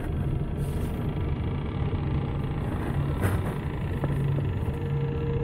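Steady low rumbling drone, with a few faint taps in the second half.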